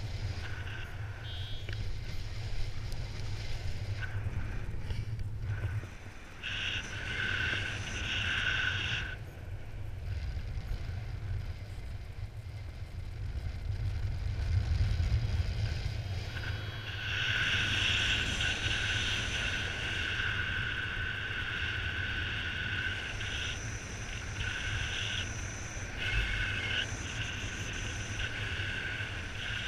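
Wind rushing over the camera microphone of a paraglider in flight, a steady low rumble. A high steady tone joins for a few seconds about a quarter of the way in and again through most of the second half, with brief breaks.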